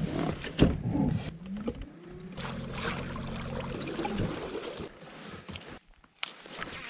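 Kayak moving over open water: water splashing at the hull with knocks and clicks of gear on deck. A low hum rises in pitch and then holds steady for about two seconds in the middle.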